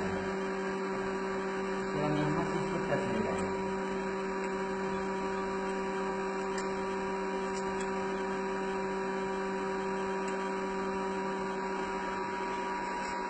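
Surface grinder running with its grinding wheel spinning: a steady electric motor hum with a few even tones, unchanging throughout.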